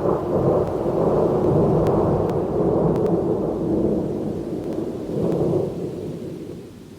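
A long rolling peal of thunder: a deep rumble that swells once more a little past five seconds in, then dies away near the end.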